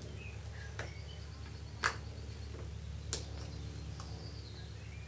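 Plastic clips of a Samsung Galaxy S2's outer casing clicking loose as a flathead screwdriver pries it up: about five sharp clicks spread over four seconds, the loudest about two seconds in, over a low steady hum.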